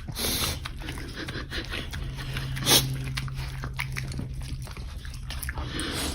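A dog making noises, with many short clicks and a low steady tone through the middle, and one sudden loud sound about three seconds in.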